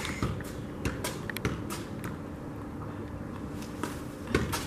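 A football being juggled: a string of ball touches on the foot and leg at uneven intervals.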